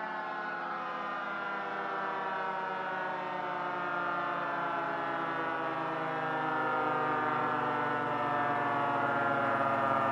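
Many miniature warning sirens sounding at once, their tones blending into a dense, wailing chord. Several pitches slide slowly downward while others hold steady.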